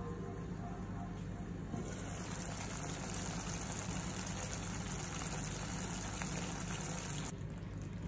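Faint bubbling of thick black bean sauce simmering in an uncovered pot, with a few small pops over a low steady hum.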